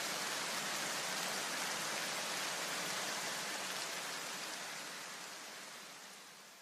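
A steady wash of white noise from the background music, fading out over the last two seconds as the track ends.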